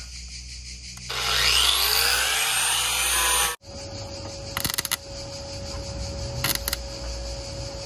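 A power tool runs loudly for about two and a half seconds, its pitch sweeping as it works, then stops abruptly. A quieter steady hum follows, with two short bursts of clicking or rattling.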